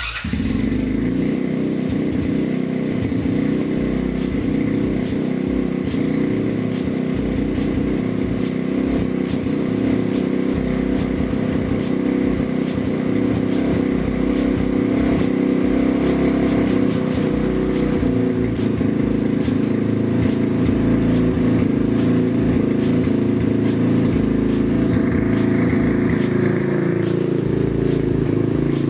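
Skyteam PBR 125 minibike's single-cylinder four-stroke engine running steadily, cutting in suddenly at the start and holding an even pitch throughout.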